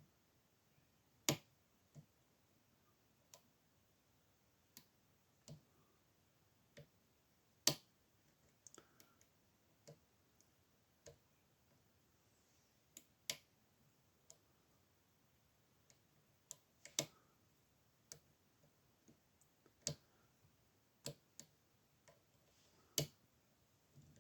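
Small brass pin-tumbler padlock being single-pin picked: sharp metallic clicks and ticks at irregular intervals, roughly one a second, a few much louder than the rest, as the pick and tension tool work the pins.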